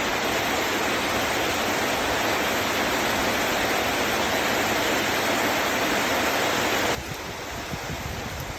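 Heavy rain falling in a steady hiss, which drops suddenly to a softer level about seven seconds in.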